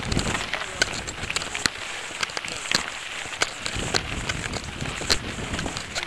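Vehicle tyres rolling over a loose gravel road: stones crackle and pop at uneven intervals over a low rumbling hiss.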